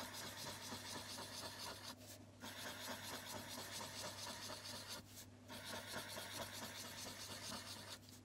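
Felt-tip marker scratching across card as a small looping pattern is drawn, with brief pauses about two and five seconds in.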